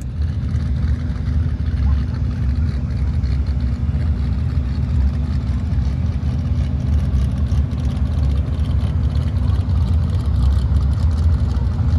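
Steady low rumble of a running vehicle engine, even throughout with no revving.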